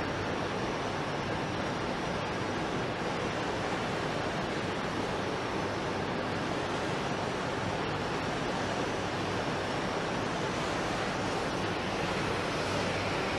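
Steady, even rushing noise of wind and outdoor background.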